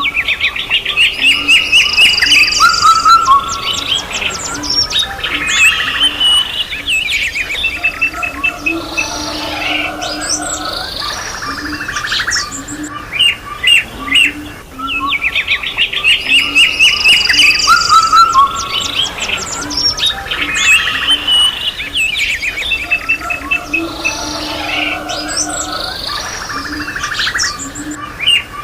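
Mixed birdsong: several birds chirping, trilling and whistling together, with a short low cooing call at times. The same stretch of song repeats exactly about every 14.5 seconds, as a loop.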